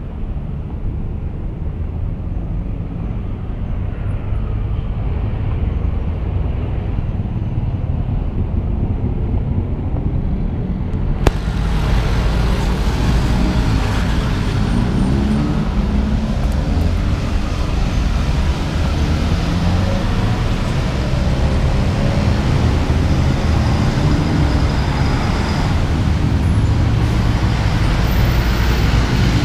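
Road traffic passing steadily on a city street. A sharp click comes about eleven seconds in, after which the traffic noise is louder.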